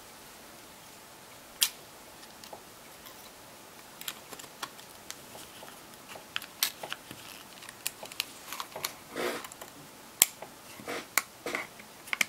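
Small clicks and taps, scattered irregularly, from the parts of an LG G2x smartphone being handled and fitted back together by hand, with a soft rustle near the end.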